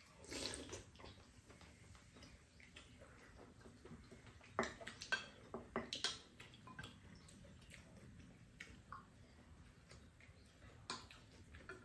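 Quiet eating sounds at a table: chewing, with spoons and chopsticks clicking against ceramic bowls, a few sharp clicks scattered through, most of them about four to six seconds in and near the end.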